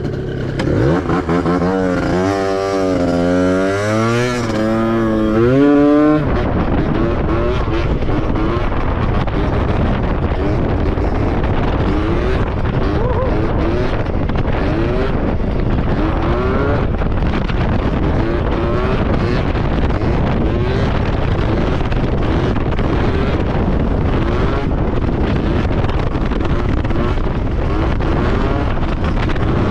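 Gilera Runner 180cc two-stroke scooter engine revving for about the first six seconds, its pitch wavering up and down. About six seconds in, heavy wind noise on the microphone takes over as the scooter rides at speed, with the engine note rising again and again through it.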